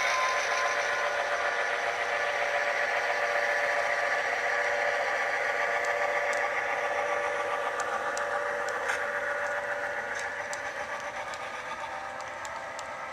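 Sound-equipped HO scale GP7 model locomotive: the SoundTraxx Tsunami decoder's EMD 567 diesel engine sound running steadily through the model's small onboard speaker, fading as the locomotive pulls away. Light clicks come in about halfway through as the hopper cars roll past.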